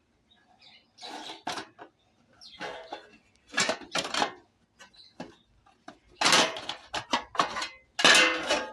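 Metal parts and tools clattering as they are handled and set down: a string of irregular rattles and knocks, loudest near the end.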